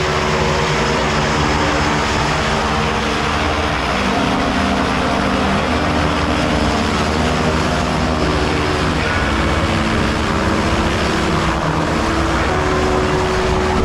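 Single-engine propeller plane running at idle on the ground, a loud steady drone of engine and propeller.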